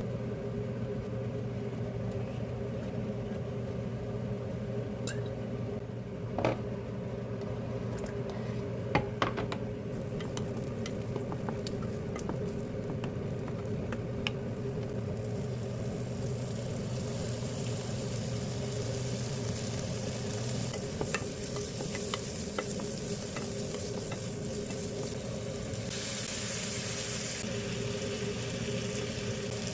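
Food frying in a pan: a sizzle that builds after about ten seconds and peaks near the end, with a few sharp taps and knocks of a cooking utensil and a steady hum underneath.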